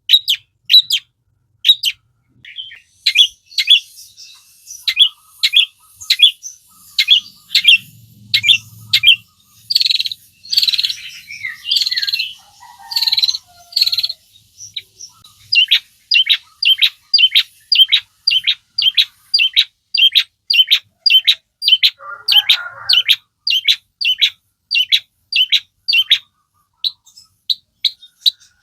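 Long-tailed shrike (cendet) singing: a fast run of sharp, high repeated notes, each dropping in pitch, about two to three a second, with a denser, scratchy chattering stretch near the middle.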